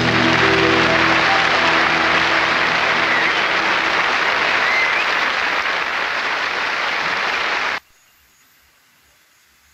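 Audience applause with a couple of faint whistles, following the last notes of the song, which cuts off suddenly about eight seconds in and leaves only faint outdoor background.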